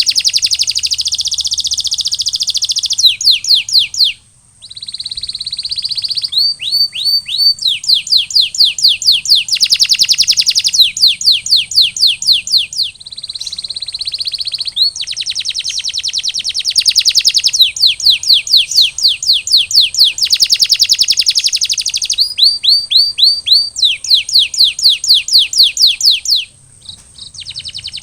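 Male domestic canary singing: long phrases of rapid trilled rolls, fast-repeated notes alternating with runs of downward-sliding whistles. There is a brief pause about four seconds in and another near the end.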